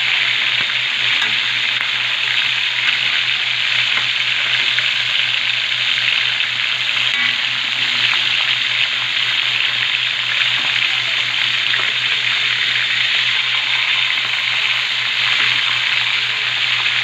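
Pieces of tulingan (bullet tuna) frying in hot oil in a metal pan, a steady even sizzle.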